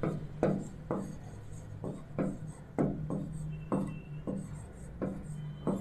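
Stylus writing on a touch-screen display: about a dozen short taps and scrapes of the pen tip, roughly two a second, over a steady low hum.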